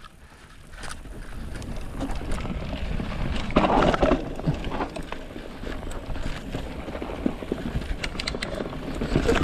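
Mountain bike running fast down a dirt forest singletrack: tyres rolling over dirt and roots and the bike rattling over bumps, with wind buffeting the microphone. The noise builds over the first few seconds as speed picks up, with a rougher, louder patch about three and a half seconds in.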